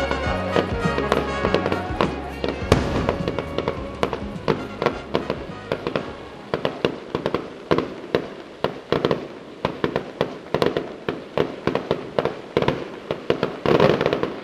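Fireworks going off in a rapid, irregular string of bangs and crackles, with music underneath that fades away over the first couple of seconds. There is a louder burst near the end.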